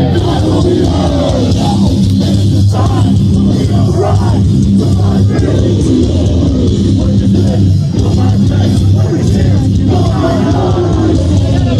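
Live rock band playing loud, heavy guitars and drums with a singer's voice over them.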